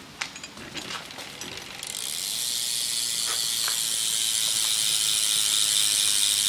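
The freewheeling rear cassette hub of a Fit Eddie 3 BMX bike: a few scattered clicks, then about two seconds in a steady, high buzz as the hub's pawls ratchet too fast to hear as single clicks.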